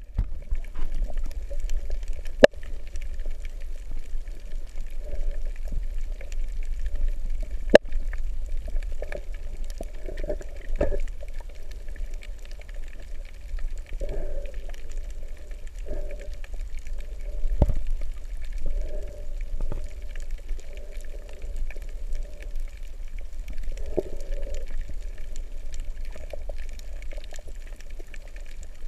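Underwater sound heard through a GoPro HD Hero 3's waterproof housing: a steady, muffled low rumble of moving water with irregular gurgles and a few sharp clicks.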